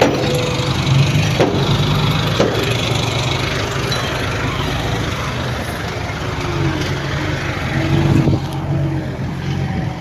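Heavy diesel engine of a construction machine running steadily, with a couple of short knocks a few seconds in.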